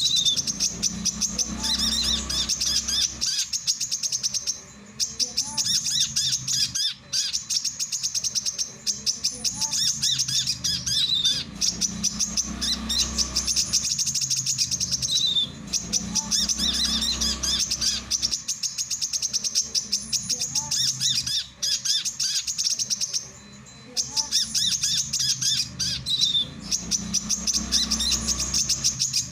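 Male brown-throated sunbird (kolibri kelapa) singing: long runs of rapid, high chirps, broken by a few brief pauses.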